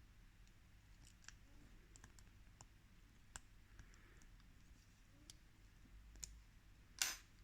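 Faint, scattered small metallic clicks of a thin hook pick working the pins of a small furniture lock cylinder under tension, then one louder, longer click about seven seconds in as the lock gives and opens.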